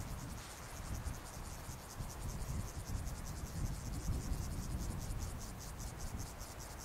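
Insects stridulating in a summer mountain meadow: a high, rapid, even pulsing, about five pulses a second, over a low uneven rumble.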